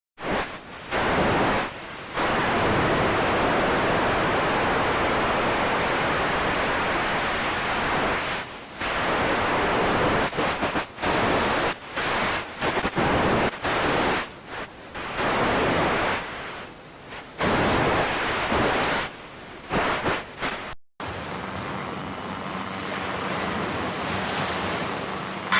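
Radio static: a loud, even hiss that starts and stops in irregular stutters, like a signal breaking up, then a short dropout and a quieter hiss with a faint low hum near the end.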